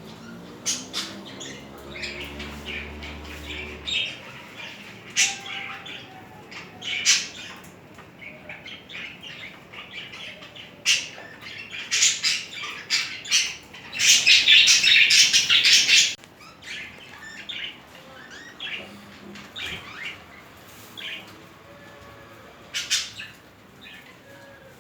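Budgerigars chirping and squawking in courtship chatter, with a louder two-second flurry about fourteen seconds in.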